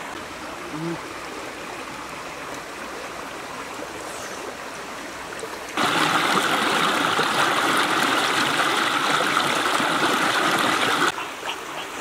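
Shallow rocky stream flowing steadily. About six seconds in it becomes a louder, close rush of water pouring over rocks for about five seconds, then drops back to the softer, more distant flow.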